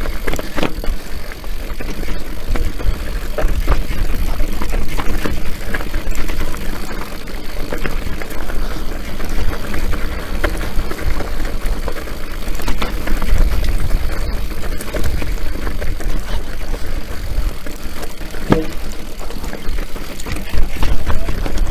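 Enduro mountain bike riding down a rocky gravel trail: tyres crunching over loose stones and the bike rattling with many small knocks over the bumps, under a steady rumble of wind on the microphone.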